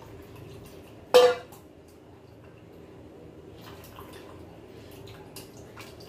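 A single loud clank of stainless steel kitchenware with a brief ring about a second in, then light clicks and scraping of a spoon working spiced mint-coriander water through a steel mesh strainer, the liquid trickling into the bowl below.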